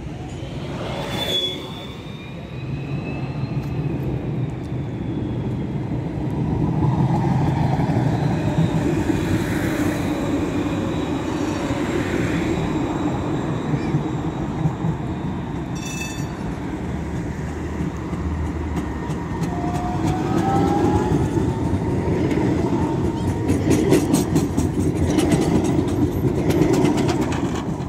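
Articulated electric trams passing close by, a steady low rumble of wheels on rails that swells about six seconds in and again near the end. About twenty seconds in a whine rises in pitch.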